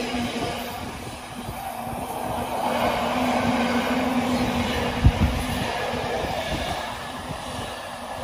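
Container freight wagons rolling past at close range: a continuous rumble of steel wheels on rail with a steady low hum, and a single sharp knock about five seconds in as a wheelset crosses a rail joint.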